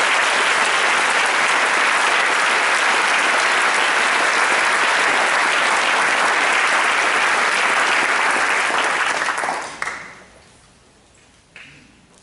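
Audience applauding, a dense steady clapping of many hands that dies away about ten seconds in.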